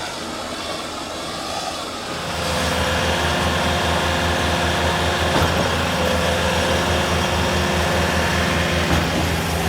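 A large engine on the concrete pour runs steadily. About two seconds in it comes up to a louder, steady run, with held tones over a low, fast throb.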